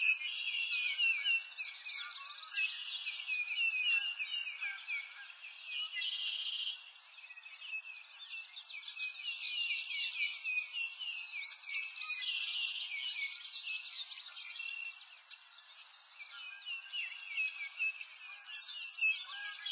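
Birds chirping and singing in a dense, continuous chorus of many short, quick high calls.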